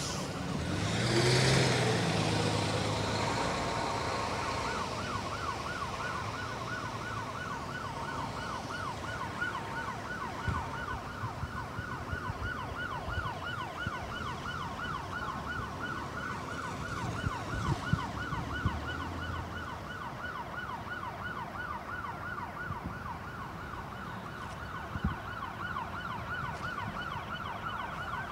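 New Jersey State Police car siren sounding a yelp: a fast up-and-down wail, about four cycles a second, running steadily. About a second in, a vehicle passes close by, the loudest moment.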